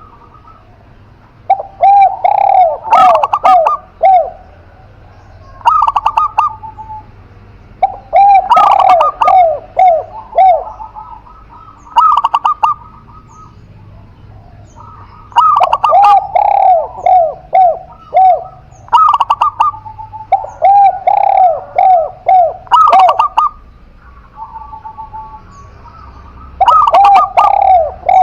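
Spotted dove and zebra dove cooing in turn. Bursts of cooing phrases, each a quick run of falling notes, come every few seconds. Short, higher chirps sit between them.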